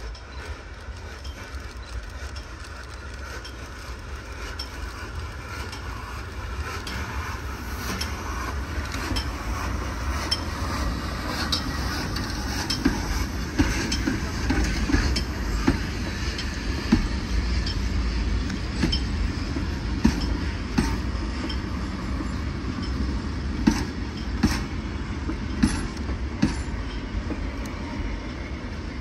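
A train drawing closer, growing louder over the first dozen seconds and then running close by. Its wheels give irregular sharp clicks over the rail joints above a steady low rumble.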